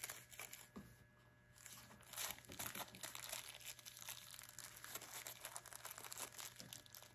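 Clear plastic bag crinkling as small valve seat cutters are handled and unwrapped from their packaging, with a short lull about a second in and then steady crinkling.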